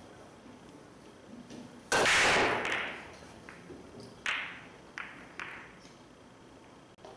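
Pool break shot: the cue ball smashes into a full rack of fifteen balls with a loud crack and clatter about two seconds in, fading over about a second as the balls scatter. Three sharp ball clicks follow a few seconds later as the spread balls strike one another or the rails.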